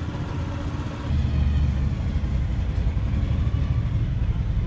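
Car engine running with a low, pulsing exhaust note that grows louder about a second in.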